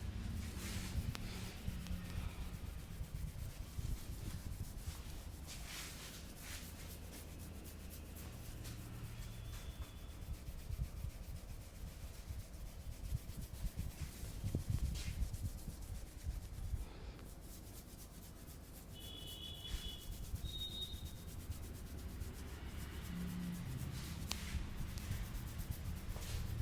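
Hands rubbing and kneading a person's scalp and hair in a head massage: an irregular scratchy rustling of skin and hair.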